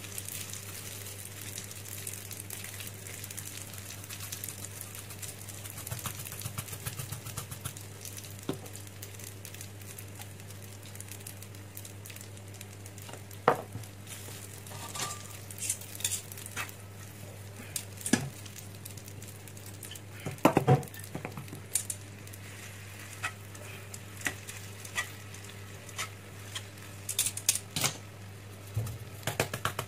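Spaghetti and garlic frying in a pan with a steady faint sizzle. Scattered knocks and scrapes of a wooden spatula stirring against the pan, the loudest about a third of the way in and past the middle, and more frequent near the end. A steady low hum runs underneath.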